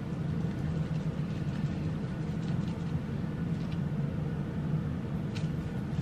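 Steady low mechanical hum and rumble, with a few faint ticks as grated cheese is shaken from a plastic shaker into a bowl.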